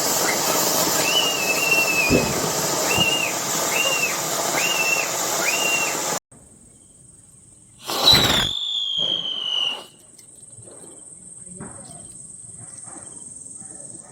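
Festival fireworks going off: a steady hiss with a string of short high chirps for about six seconds, then a sudden cut. Two seconds later one firecracker goes off loudly with a falling whistle that lasts about two seconds, followed by a few faint pops.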